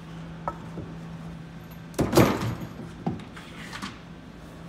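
Cedar boards set down and knocked against each other on a wooden workbench: a light knock about half a second in, a louder clatter of several knocks about two seconds in, and another knock a second later, over a steady low hum.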